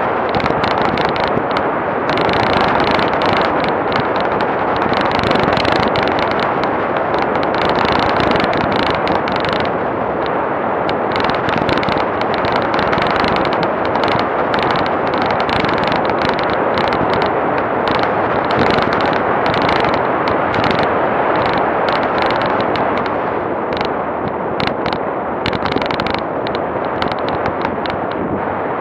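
Off-road vehicle driving along a rough dirt road, picked up by a camera mounted on it: loud steady running and road noise with rapid, irregular rattling clicks.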